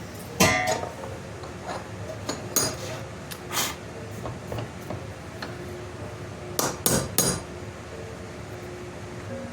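Hammer peening over the 1/4-inch pin through a knife handle: a few sharp metal-on-metal strikes, the loudest about half a second in, then a quick group of three near the end.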